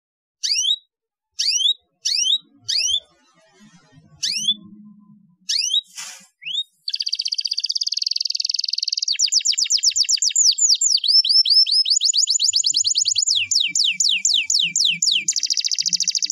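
Domestic canary singing: separate falling chirps at first, about one every half second, then from about seven seconds in a fast continuous trill and quick runs of falling notes.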